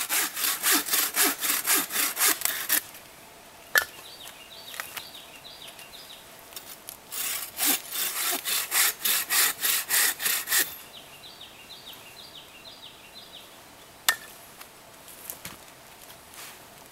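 A bow saw cuts through a dry, dead black spruce pole in quick back-and-forth strokes. There are two runs of sawing a few seconds long with a pause between them, and a single sharp knock falls in the pause and another near the end.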